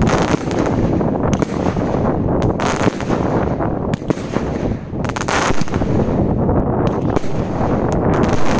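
Blockbuster 37-shot firework barrage cake firing shots in quick succession. A dense run of launch bangs and bursts overlaps with crackling, with no gaps.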